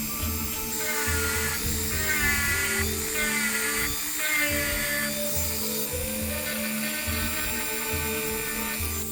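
Background music with a steady beat, over the steady high whine of a power tool.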